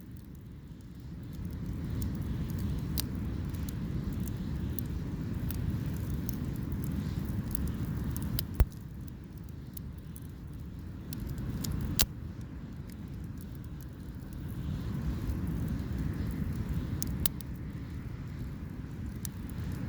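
Wood fire crackling, with sharp single pops every few seconds, the loudest about eight and twelve seconds in, over a low uneven rumble.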